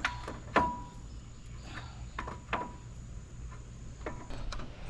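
Hand tools on the Bronco's suspension bolts: about five sharp metal clinks, some ringing briefly, with a thin steady high-pitched whine that stops near the end.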